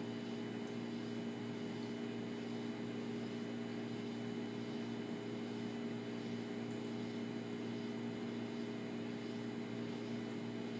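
Steady low electrical or mechanical hum that holds unchanged throughout.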